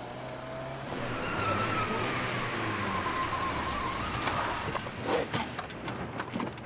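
A car speeding away, engine and tyre noise with a long tyre squeal that slides slightly down in pitch, followed by a string of sharp knocks.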